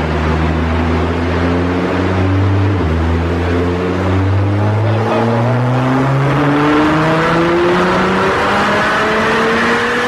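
Gran turismo sports car engine accelerating under load. Its pitch steps and breaks several times in the first half, then climbs slowly and steadily.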